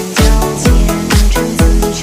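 Background electronic dance music with a steady kick drum about two beats a second over a bass line and chords.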